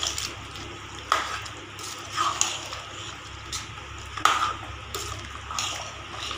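Metal ladle stirring a thick mutton and potato curry in a pressure cooker pot, clinking against the pot's side several times with short metallic rings.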